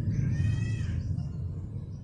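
Domestic canary giving a soft, arched note about half a second in, after its song trill has broken off, over a steady low hum.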